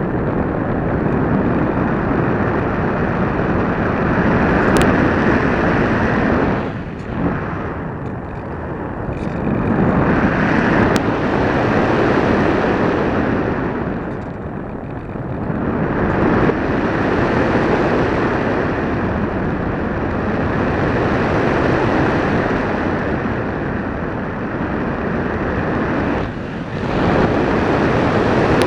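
Airflow rushing over the onboard camera of a radio-controlled FPV model plane in flight: a loud, steady rush that swells and eases, dropping briefly about seven, fifteen and twenty-six seconds in.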